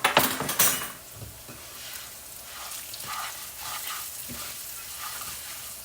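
Rice browning in hot oil in a pan on the stove, sizzling steadily while a spoon stirs and scrapes it. A louder scrape comes in the first second, then softer stirring strokes.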